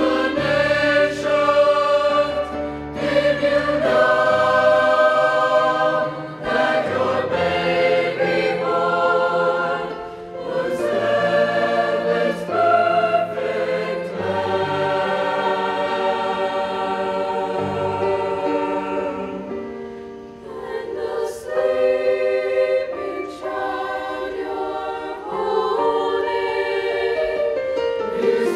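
A high school choir sings a holiday piece in several parts, holding sustained chords that change every second or two over a low bass line.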